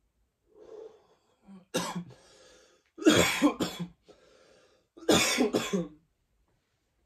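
A man coughing in three bouts: a single cough, then two louder bouts of two or three coughs each. It is the coughing after a dab hit of cannabis concentrate.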